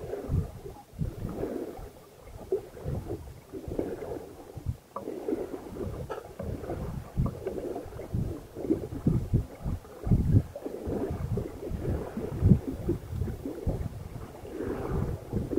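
Water rushing and splashing along a sailing yacht's hull as it moves through choppy sea, with wind buffeting the microphone in uneven low rumbles.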